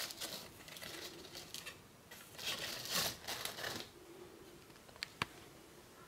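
Handmade card being handled: the card stock rustling and crinkling against fingers for about four seconds, then two short sharp clicks.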